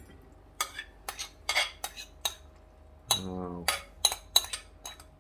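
Metal spoon scraping and knocking against a ceramic bowl while minced-pork salad is scooped out onto a plate: a run of irregular clinks and scrapes.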